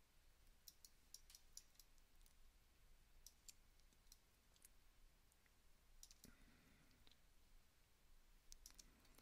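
Near silence with faint, scattered computer mouse clicks.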